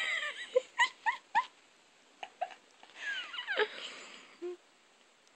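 A cat's short chirps, a quick run of four in the first second and a half, then a longer falling meow.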